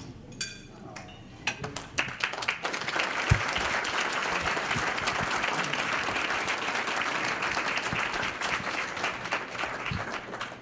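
Audience applauding: scattered claps about a second and a half in swell into full applause that thins out near the end. A single low thump is heard about three seconds in.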